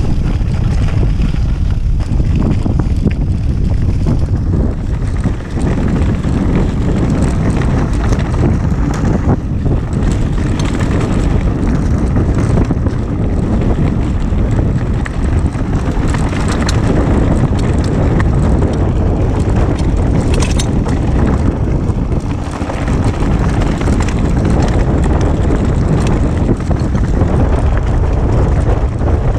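Wind buffeting a chest-mounted action camera's microphone while a Kona Process 153 full-suspension mountain bike rolls downhill over a rough, stony dirt trail. A steady low rumble and rattle of tyres and frame runs throughout, with occasional sharp knocks from hitting stones.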